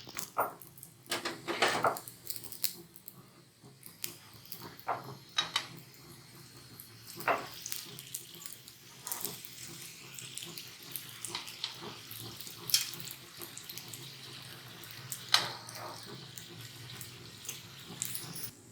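Paratha frying in oil on a hot griddle: a steady sizzle with scattered sharp clicks and crackles.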